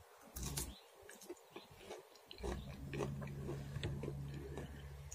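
Close-up chewing of a sprig of fresh green herb: small wet mouth clicks and smacks. From about two and a half seconds in, a low steady hum sits under the chewing.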